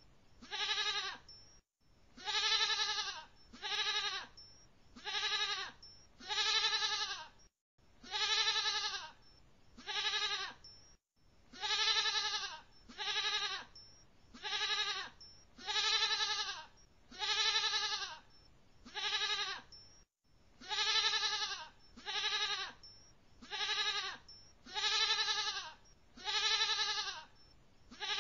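Goat bleating over and over, about one call every second and a half, each call short and rising then falling in pitch.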